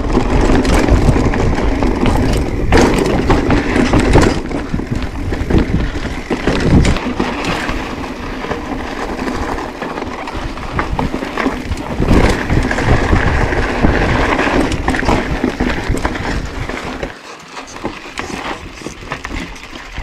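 Mountain bike riding over a rocky trail: steady wind noise with frequent knocks and rattles of the bike jolting over rock, easing off for a moment about seventeen seconds in.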